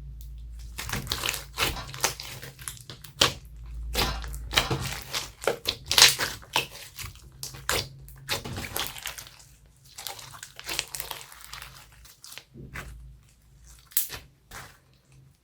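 Homemade slime being squeezed, stretched and kneaded by hand, making irregular sticky crackles and pops, busiest in the first two thirds and thinning out toward the end.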